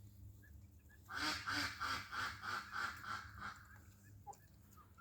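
A farm bird calling in a quick run of about eight squawks, some three a second, lasting about two and a half seconds.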